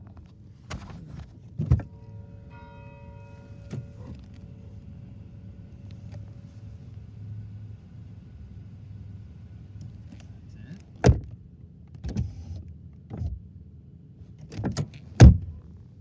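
St. Bernard Catholic Church bell tolling for noon, heard from inside a car: one strike about two and a half seconds in rings out and fades over several seconds. Sharp knocks and thumps from inside the car come twice early and in a cluster over the last five seconds, the loudest near the end.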